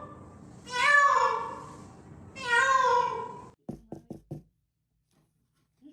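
Domestic cat meowing twice, long drawn-out meows that rise then fall in pitch, followed by four quick knocks or taps about four seconds in.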